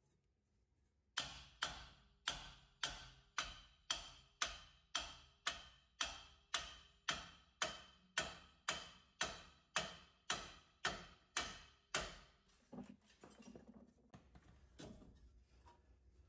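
A hammer striking a Ram ProMaster van's steering knuckle in a steady run of about twenty sharp metallic blows, about two a second, stopping about twelve seconds in. The blows beat the knuckle loose so the strut can come down out of it.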